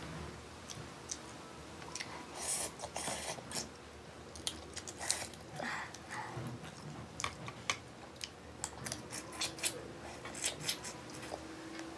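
Shellfish shells cracked and pulled apart by hand, giving irregular clicks and crackles, mixed with chewing and sucking mouth sounds.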